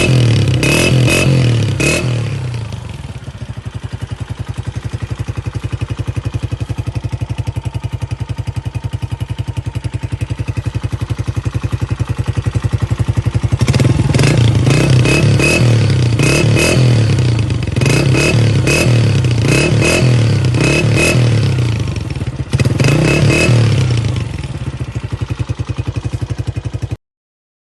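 Honda CG125 single-cylinder motorcycle engine through an aftermarket KYH silencer, blipped a few times, then idling steadily with an even exhaust beat for about ten seconds. It is then revved in a run of quick blips, about one a second, and settles back to idle before the sound cuts off suddenly near the end.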